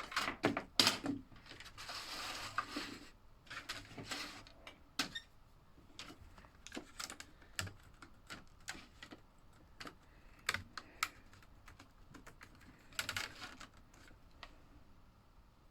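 Irregular light clicks and taps of small plastic toy parts being handled and fitted together, like slot car track or accessory pieces, with a short rustle about two seconds in and another near the end.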